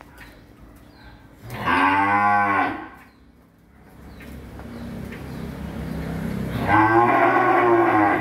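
Young beef cattle in a pen mooing. One loud moo of about a second comes about one and a half seconds in. A second, longer moo swells up from about four seconds in and is loudest near the end.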